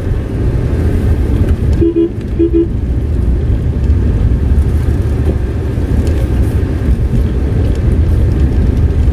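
Tata Nexon driving slowly on a town street, its engine and road noise a steady low rumble inside the cabin, with two short horn toots about two seconds in.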